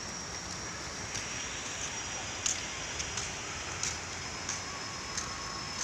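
Footsteps on a paved walkway, about one and a half steps a second, over a steady rushing background and a steady high-pitched insect whine.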